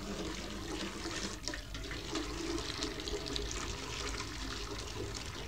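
Water running and gurgling steadily in a kitchen sink as its blocked waste pipe is cleared.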